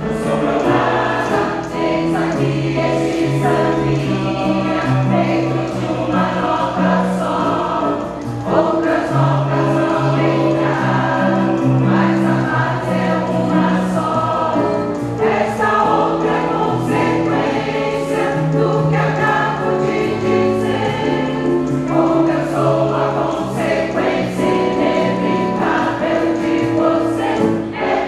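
Mixed choir of men's and women's voices singing a song in parts, with held notes that move together every second or so.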